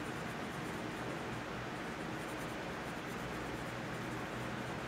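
Oil-based colored pencil shading a swatch on sketchbook paper: a steady, soft scratching of the lead on the page.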